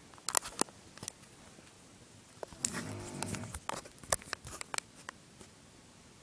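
An elderly woman snoring once, a drawn-out rasping snore of about a second in the middle. Sharp clicks and rustles come before and after it.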